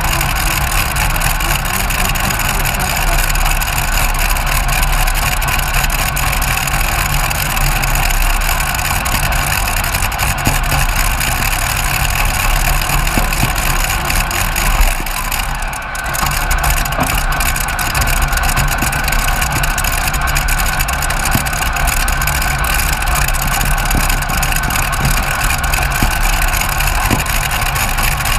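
Twin Rolls-Royce Griffon V12 aero engines of a heavy modified pulling tractor idling loudly and steadily, heard from the driver's seat. The sound dips briefly about halfway through.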